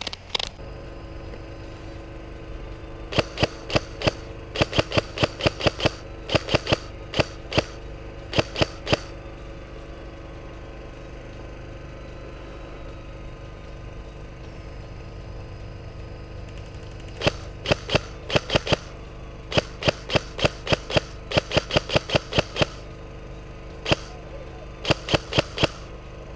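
Airsoft rifle firing strings of sharp shots in quick succession, in two spells with a pause of several seconds between them.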